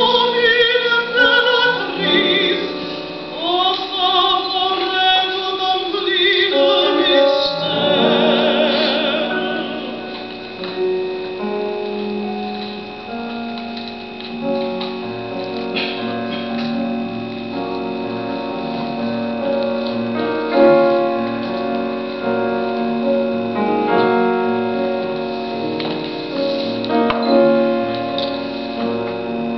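Female operatic singing with a wide vibrato over piano accompaniment; the voice stops about a third of the way in, and the piano carries on alone with slow, sustained chords.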